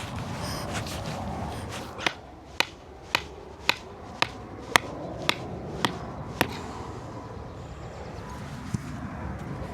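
Mallet hammering a stake into the ground: nine sharp, evenly spaced blows, about two a second, starting about two seconds in and stopping some four seconds later.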